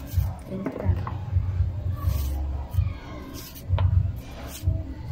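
Knife slicing a bitter gourd (ampalaya) held in the hand: a few sharp clicks of the blade cutting through, among low dull thumps of handling.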